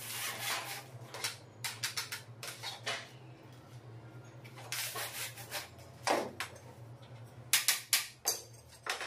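Corded electric drill driving screws through a metal sliding-door runner plate into a plywood wardrobe door, in short bursts. Near the end come a few sharp, loud knocks.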